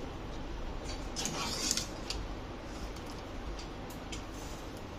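A wire spider skimmer scooping boiled rice and scraping against a metal pot: a short scraping clatter about a second in, then a click and a few light metal taps, over a low steady hum.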